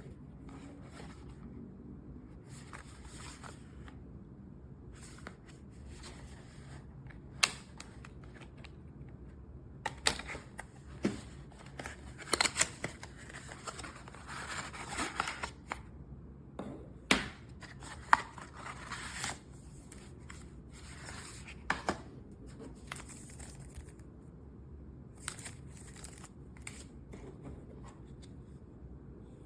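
Handling noises: scattered sharp clicks and knocks of small hard objects, with a stretch of rustling about halfway through.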